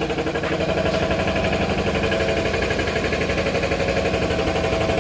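Toilet-paper rewinding machine running on a test run, a steady machine drone with a fast, even pulsing.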